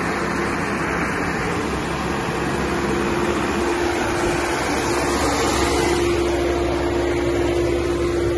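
Massey Ferguson 6712 125 hp tractor's diesel engine running steadily as the tractor crawls along in creeper gear, with one steady tone held over the engine noise.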